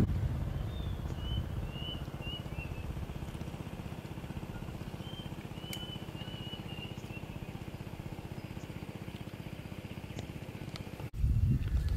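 Outdoor ambience: a steady low drone of a distant motor, with a bird chirping in two short runs of notes over it. About eleven seconds in it cuts off abruptly and louder close-up eating sounds take over.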